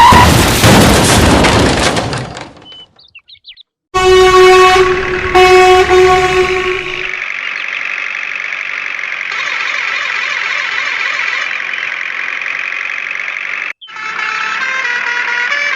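Loud cartoon truck-horn blasts over a rumble of vehicle noise, twice with a brief drop-out between, then a steady electronic tone with a simple melody starting near the end.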